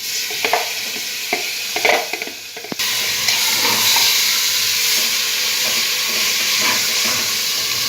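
Marinated mutton frying in hot mustard oil and spice paste in a pressure cooker pan, sizzling, with a few short knocks early on; the sizzle turns louder and steadier about three seconds in as the meat goes into the oil.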